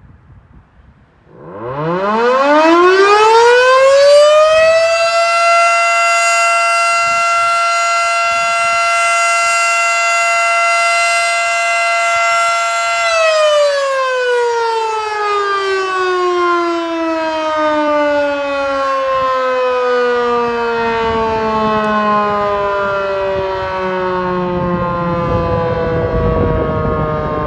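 Federal Signal Model 5 outdoor warning siren sounding a test: it starts about a second in, winds up to a steady high tone within a few seconds, holds it for about eight seconds, then winds down in a long, slow falling glide.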